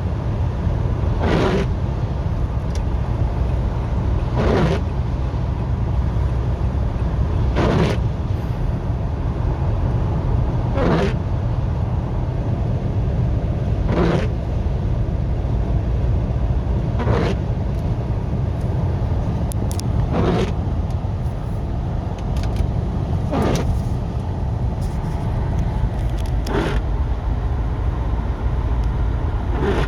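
Rain-X Expert Fit hybrid wiper blades sweeping across a car windshield about once every three seconds, each pass a short swish. Under them runs the steady low rumble of the car's engine.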